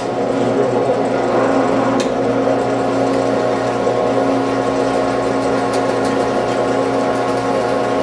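Benchtop drill press motor running at a steady hum while a 7/8-inch bit bores a hole into a plywood panel, with a few faint clicks.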